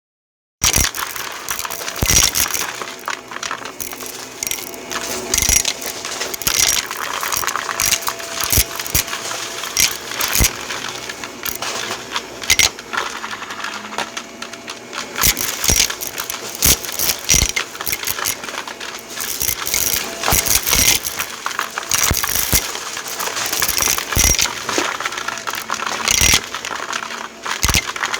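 Small hard objects clicking and clinking in a dense, irregular stream over a faint steady hum.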